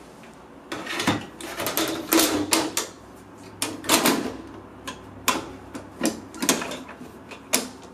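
Steel top cover of a Dell PowerEdge R720 rack server being put back on the chassis: a run of metal scrapes, clunks and clicks as it is set down and slid into place, with a sharp click about four seconds in and another near the end.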